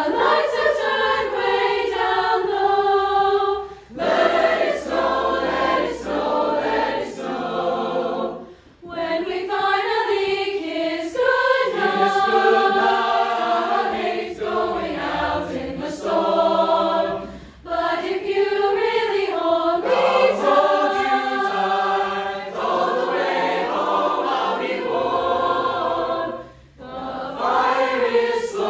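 High school chorus singing a holiday song together, in several passages separated by a few brief breaks.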